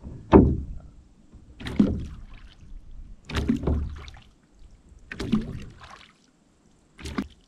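Sculling oar blade being placed into calm water at the catch: five short plops, each sharp at the start, about one every 1.7 seconds.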